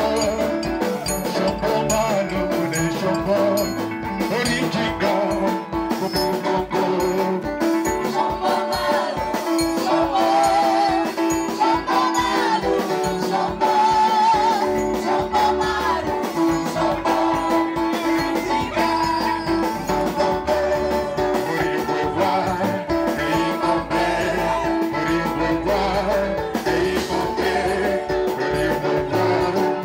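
Upbeat band music with a steady drum beat and a voice singing over bright melodic instruments.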